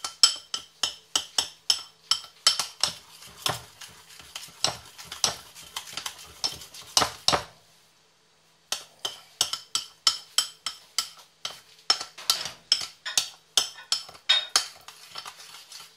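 A spoon clinking and scraping against a white ceramic bowl, about three to four taps a second, as boric powder, sugar and water are stirred into a paste. The tapping stops for about a second midway, then carries on.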